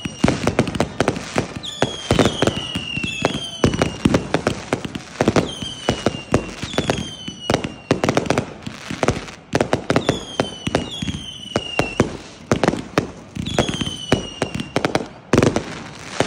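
A multi-shot consumer firework cake firing in rapid succession: sharp launch thumps and crackling bursts, over and over, with repeated whistles that fall in pitch.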